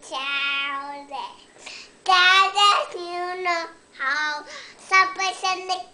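A young boy singing enthusiastically in several phrases, holding long notes whose pitch wavers and slides, with short breaks between phrases.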